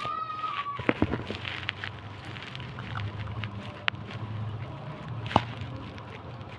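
Scattered clicks and crackles of handling noise as the phone is moved and a cylindrical can is gripped and turned, over a low steady hum. A brief pitched tone, sliding slightly down, is heard in the first second.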